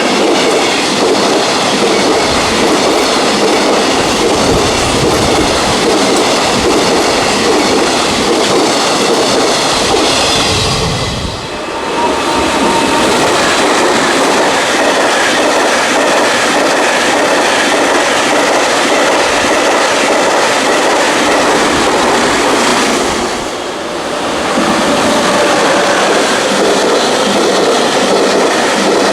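A long JR Freight container train running past close by, its wagons' wheels clattering steadily over the rail joints. The sound dips briefly twice.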